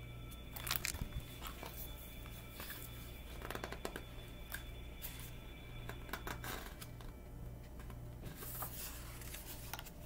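Scattered rustles and clicks of a hardcover picture book being handled, its paper pages shifting, over a steady low hum.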